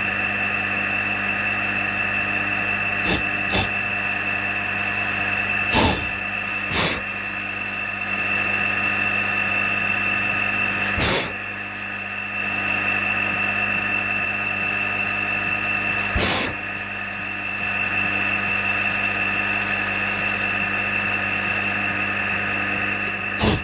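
Milling machine running steadily with an even mechanical hum and a high whine, while holes are drilled. It is broken by about half a dozen sharp clicks or knocks, and the level briefly dips twice.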